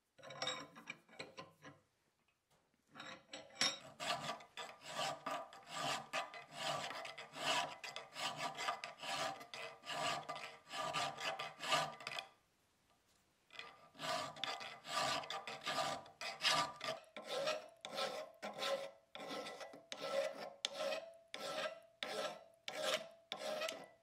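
Hand file stroking back and forth across a forged steel carabiner clamped in a vise: a rhythm of rasping strokes about two a second, broken by two short pauses. Under the later strokes the steel piece gives off a faint ringing note.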